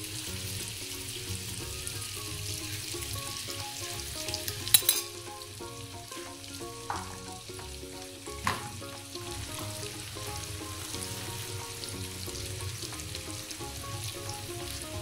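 Marinated chicken pieces frying in butter in a nonstick pan, a steady sizzle. A few sharp clacks of a utensil against the pan cut through it, the loudest about five seconds in.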